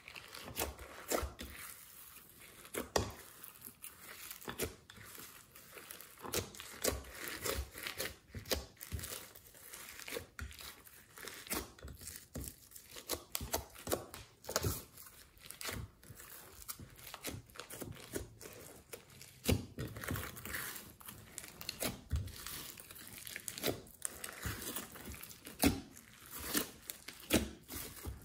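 Hands squishing, folding and stretching glossy slime with clay, glitter and beads mixed in, giving a busy run of irregular sticky pops, crackles and squelches.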